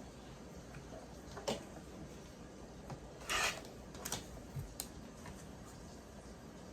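Selvages being cut off fabric strips on a cutting table: one short rasping cut about three seconds in, with a few clicks and taps of the tools and fabric being handled around it.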